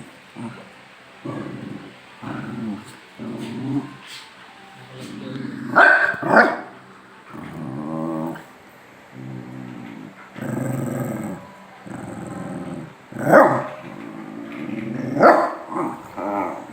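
Two dogs play-growling at each other in a long run of short, pitched growls, broken by a few sharp barks about six seconds in and twice near the end.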